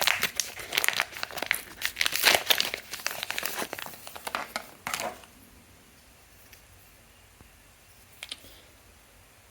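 Packaging being opened by hand, crinkling and tearing in a rapid run of crackles for about five seconds, then stopping; a couple of faint clicks follow near the end.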